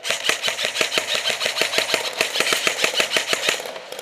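Electric airsoft rifles firing on full auto: a rapid, even rattle of shots that stops about three and a half seconds in.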